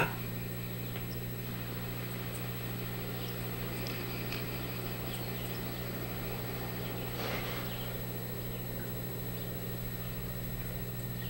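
Quiet stretch of a western film's soundtrack playing through the speaker of a 1948 Crosley 9-407 television, with faint outdoor sounds over a steady low hum and a brief louder sound about seven seconds in.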